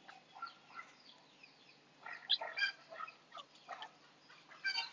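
Faint, scattered short high-pitched animal calls, a few louder ones about two and a half seconds in and near the end.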